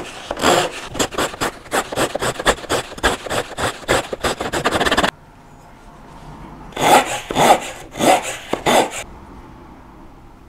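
Fine-toothed handsaw, held flat under a stack of spacer boards, sawing back and forth through a small softwood block to cut a tenon: a fast run of rasping strokes that stops abruptly about five seconds in, then about six more strokes a couple of seconds later.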